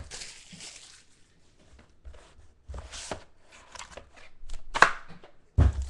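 Trading cards and card packs handled on a desktop: light rustling with scattered taps and clicks, a sharper click near the end and a low thump just after.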